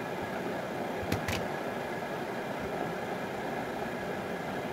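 Steady, even background hum and hiss, like a running fan, with two light clicks close together about a second in.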